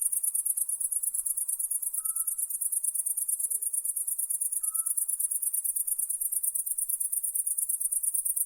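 Night insect trilling: a steady, very high-pitched, rapidly pulsing buzz that cuts off abruptly at the very end. A few faint short chirps sound lower down in the background.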